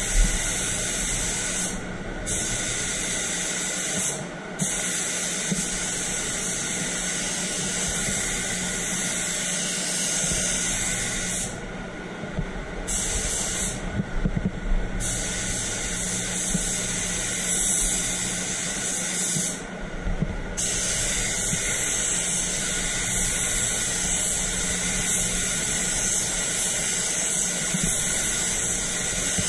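Compressed-air gravity-feed spray gun hissing steadily as it sprays white direct-gloss topcoat onto a bumper. The hiss cuts out briefly about five times, where the trigger is let go between passes, over a steady low hum.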